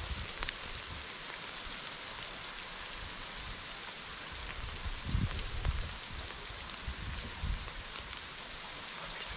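Heavy rain falling, a steady even hiss. A few brief low rumbles come about halfway through and again a little later.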